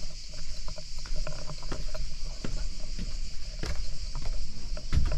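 A steady high-pitched insect chorus with scattered light knocks and a low rumble.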